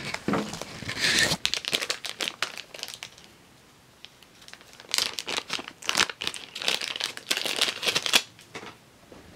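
Rustling, crinkling handling noise from the camera being handled close against clothing, in two bouts: one through the first three seconds and another from about five to eight seconds in, with a quiet gap between.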